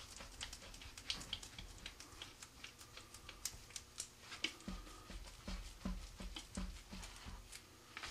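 Faint clicks and light taps of hands handling rocket motor parts on a table, with a run of soft low thumps through the middle.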